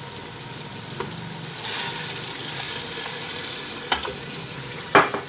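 Turnips and meat sizzling in a hot aluminium pressure cooker. About a second and a half in, water goes in and the sizzle rises to a louder hiss as it hits the hot pot. A wooden spoon then stirs, knocking against the pot a few times, loudest near the end.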